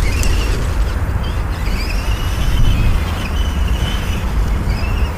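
Wind buffeting the microphone, with the high whine of the Traxxas Stampede 4x4 RC truck's electric motor rising and falling several times as the throttle is worked.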